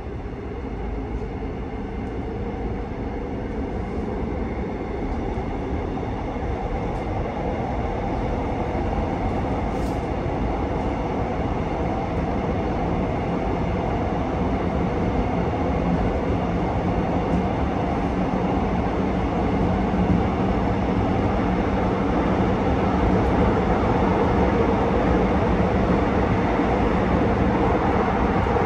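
Running noise inside a Gyeongui–Jungang Line electric multiple-unit passenger car: a continuous rumble of wheels on rail with a steady hum, growing steadily louder.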